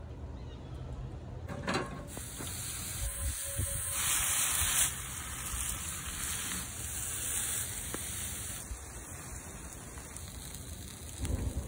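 Picanha, burger patties and bacon sizzling over a wood-fired grill, a steady hiss that comes in about two seconds in, is loudest a little later and eases off after about eight seconds.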